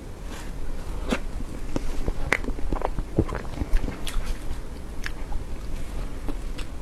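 Close-miked eating sounds: a person chewing soft cream cake, with irregular wet mouth clicks and smacks.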